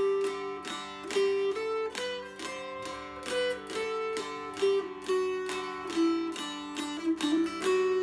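Newly built mountain dulcimer of poplar and northern cherry, strung with a double-melody string arrangement, strummed in a steady rhythm: a tune stepping up and down over unchanging drone strings.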